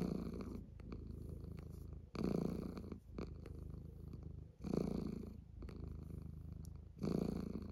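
Tabby-and-white kitten purring steadily while being stroked on the head, the purr swelling louder four times, about every two and a half seconds.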